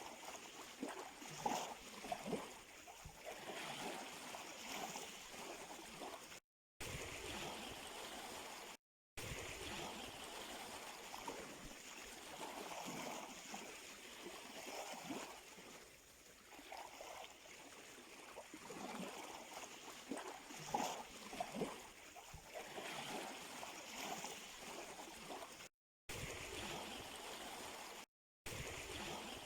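Small sea waves lapping and splashing at the shore, with water gurgling and trickling. The sound cuts out to dead silence four times, each time for a fraction of a second.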